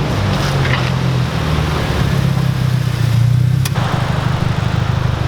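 A performance car's engine and exhaust running with a steady low drone, swelling slightly about three seconds in, with a single sharp click shortly after.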